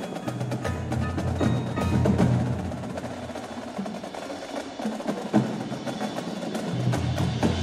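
Indoor percussion ensemble playing: a busy stream of sharp drum and mallet strikes over low held bass notes, with one especially loud hit about five and a half seconds in.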